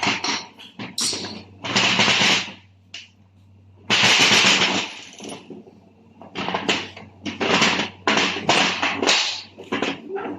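Workshop work on a manual gearbox: loud bursts of rattling metallic clatter, two longer ones early on, then a quicker run of shorter bursts in the second half.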